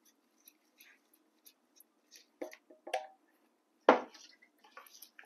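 Wooden chopsticks clicking and scraping against a glass mixing bowl while stirring liquid into flour, with a faint trickle of liquid. About four seconds in, a single knock, the loudest sound, as the metal saucepan is set down on the wooden board.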